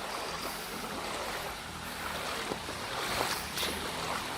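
Floodwater sloshing and splashing in a street under water, with a steady wash of noise and a few short splashes in the second half.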